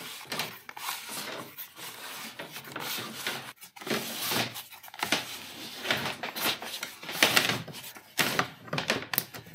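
Klein Tools fish tape being reeled by hand into its plastic reel, drawing a wire back through a hole in a plastic kayak hull: irregular scraping and clicking as the tape feeds in.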